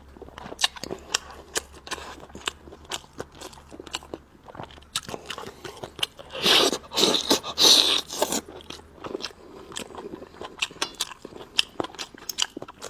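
Close-up eating sounds: biting and chewing with many sharp clicks and crunches, and a louder, noisier stretch of eating about halfway through.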